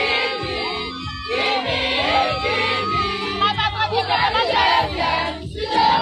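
A crowd cheering and singing over loud music, many voices at once.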